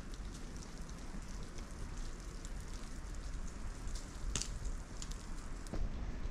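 Outdoor ambience with a steady hiss and scattered light ticks, then a few footsteps in snow near the end.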